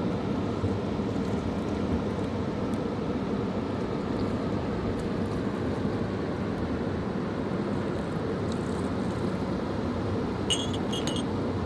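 Fast-flowing mountain river rushing steadily, a low, even roar of water. A few brief high-pitched sounds come near the end.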